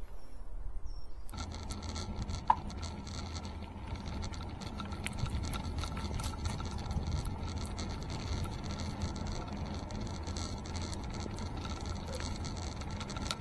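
Mountain bike being ridden over grass, heard from the handlebar: steady tyre rumble with light rattling of the bike, starting about a second in. A single short, sharp ping about two and a half seconds in is the loudest sound.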